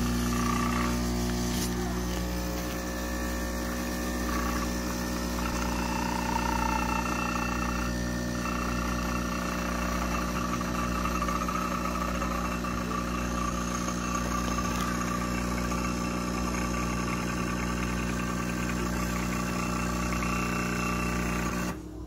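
De'Longhi Stilosa espresso machine's vibratory pump humming steadily while a shot of espresso pours into the cup. The hum cuts off near the end as the machine is switched off at the dial.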